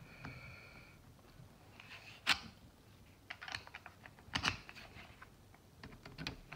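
Small scattered metal clicks and taps of a precision screwdriver and its bit working the tiny screws of a folding knife as the screws are started, with two sharper clicks about two and four and a half seconds in.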